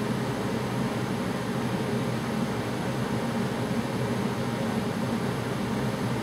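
A heater running, giving a steady fan-like rushing noise with a constant low hum.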